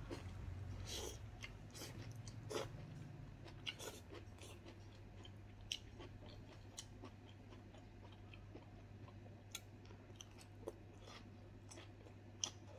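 Faint mouth sounds of a person chewing raw bitter gourd shoots and leaves, with irregular crisp crunches and smacks, most of them in the first few seconds, over a steady low hum.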